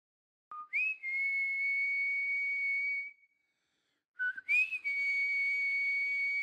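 Two long, high-pitched whistles. Each opens with a short lower note that slides up and is then held at one steady pitch. The first stops about three seconds in; the second starts about a second later and is still held at the end.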